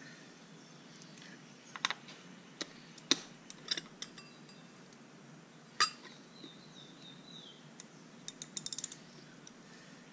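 Metal hand tool clicking and tapping against the oil filter and engine block of a Suzuki DF250 outboard as the filter is worked loose: scattered sharp clicks, then a quick run of about six clicks near the end.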